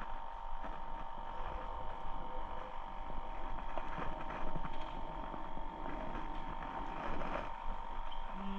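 A motor running steadily: a constant hum-like tone over a steady hiss.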